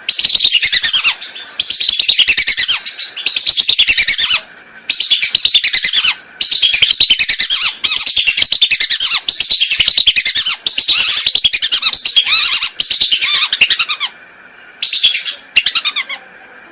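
Whistling duck (belibis) calls played as a hunting lure: about a dozen loud phrases of rapid high whistled notes, each falling in pitch over a second or so, with short breaks between them and two shorter phrases near the end.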